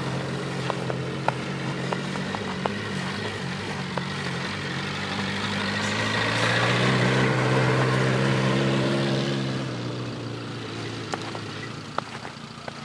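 Suzuki Samurai jeep's engine running as it drives over snow, with a steady note that grows louder as the jeep comes nearer past the middle, then fades as it moves away.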